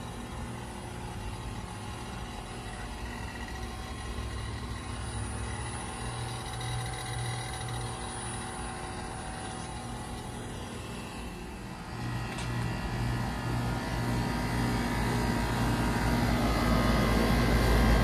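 Trane heat pump outdoor unit running: a steady hum with the whir of the condenser fan, getting louder in the last third.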